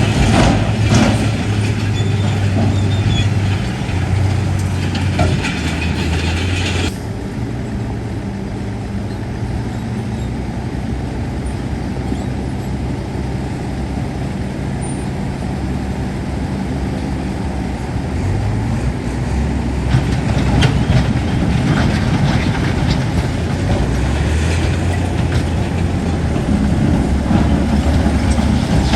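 Heavy diesel earthmoving machinery running under load, its engine note shifting several times, with scattered knocks and clanks in the second half.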